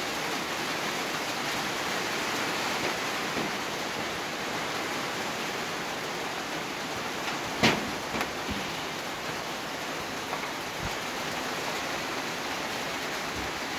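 Steady hiss and bubbling of a large pot of sugar syrup at a rolling boil, with rosogolla chhena balls cooking in it. A single sharp knock comes about halfway through, followed by a few fainter taps.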